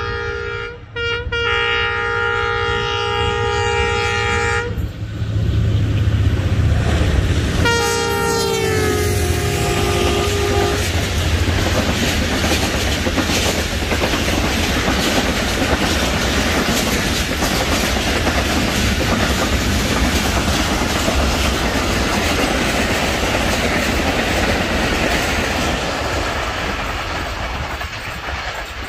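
An express train running through the station at full speed. The locomotive's air horn sounds long, with a short break about a second in, and sounds again about eight seconds in, dropping in pitch as the locomotive passes. The coaches' wheels then clatter by steadily, fading near the end.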